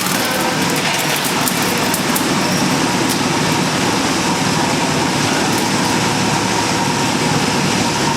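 Drum wood chipper running, a steady loud mechanical din with a faint constant hum, and a scatter of sharp clicks through the first three seconds.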